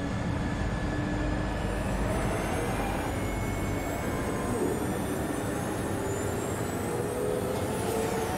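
Engines of large airships hovering in, from an animated show's soundtrack: a steady rumble with whines that slowly rise in pitch.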